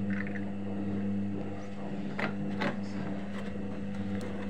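Arçelik 3320 SA washing machine running its main wash, a steady motor hum. Two short knocks come about two seconds in.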